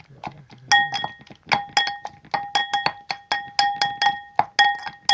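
Pestle pounding fried tomatoes and garlic into a fine paste in a mortar, about three to four strikes a second. Each strike rings briefly with a clear tone.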